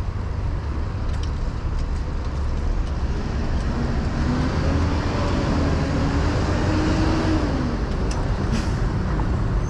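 City road traffic: motor vehicles running close by, with one engine's tone rising and then falling about halfway through as a vehicle accelerates past.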